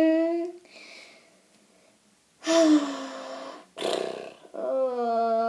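A child's voice making drawn-out battle roars and cries, about four in all, some rough and some held on one pitch, the last one long near the end.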